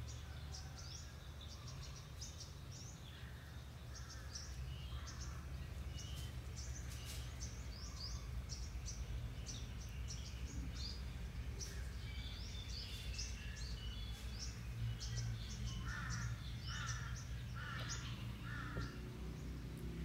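Birds chirping in the background, many short high chirps, with four harsher calls about a second apart near the end, over a steady low hum.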